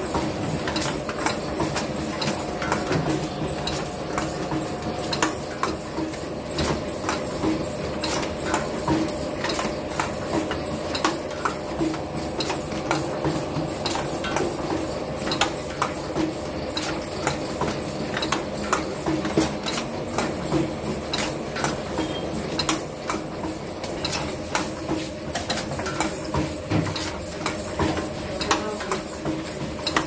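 Semi-automatic cone ice cream crimping machine running: a steady motor hum with frequent, irregular metallic clicks and knocks from the rotary table and crimping head.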